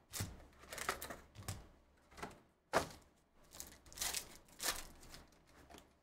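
Foil trading-card pack wrapper crinkling and tearing open in the hands, with cards sliding out. It comes in short crackles, with one sharp crack a little before the halfway point as the loudest.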